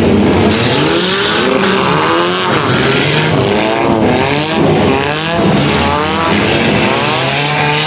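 Pack of dirt-track pure stock and four-cylinder race cars circling the oval, running in the wet track after a rain delay. Many engines overlap, their notes rising and falling as the cars pass one after another.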